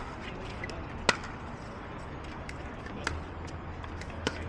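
Pickleball rally: sharp pops of paddles striking the plastic ball and the ball bouncing on the hard court, the loudest about a second in and two fainter ones near the end.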